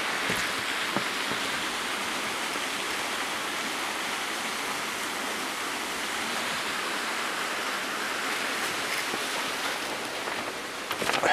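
Steady rush of running water from a creek or waterfall.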